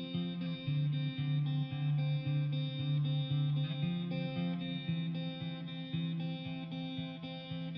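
Background music led by guitar, with plucked notes at a steady pace.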